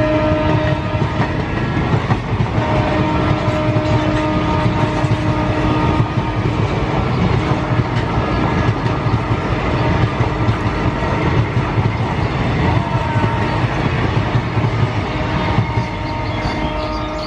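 ICF passenger coaches of an express train running past close by, a dense steady rumble of wheels on the track. A long steady pitched tone sounds over it most of the time, breaking off briefly now and then. The train noise eases off a little near the end as the last coach goes by.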